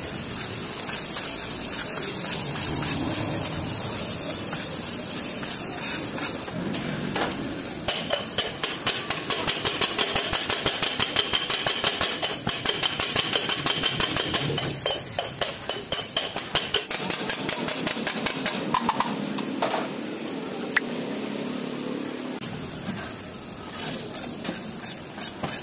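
Kothu parotta being made on a flat griddle. It sizzles while it is scraped and turned with a metal spatula. About seven seconds in, two steel blades start chopping it against the griddle in a fast, rhythmic metallic clatter, which stops and starts again near the end.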